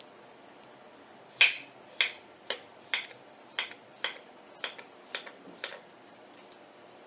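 Kitchen knife cutting through a raw vegetable held in the hand: about ten crisp cutting clicks, roughly two a second, the first the loudest.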